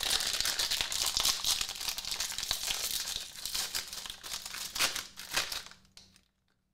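Foil-lined snack pouch of cacao-dusted almonds being opened and crinkled in the hands: dense rustling for the first few seconds, then a few sharper crinkles, dying away near the end.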